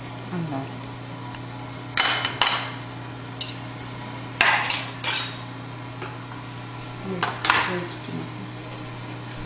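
Metal serving tongs clinking against china plates as food is served, in short clusters of sharp clinks about two seconds in, around five seconds, and near seven and a half seconds. A steady low hum runs underneath.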